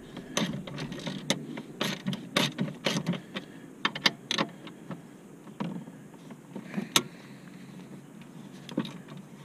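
Hand ratchet with an 8 mm deep-well socket clicking in short, irregular runs as a screw under the dashboard is backed out. The clicking dies down after about four and a half seconds, with one sharp click about seven seconds in.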